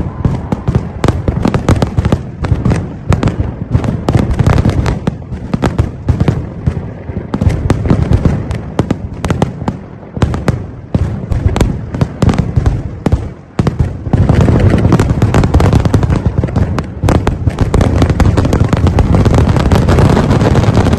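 Kerala temple fireworks (vedikettu) exploding in a rapid, unbroken string of bangs. About two-thirds of the way through, the bangs merge into a continuous, louder barrage.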